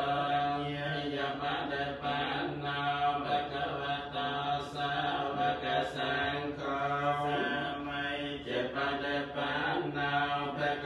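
Khmer Buddhist ritual chanting: voices recite together in a steady, droning monotone with only slight rises and falls in pitch.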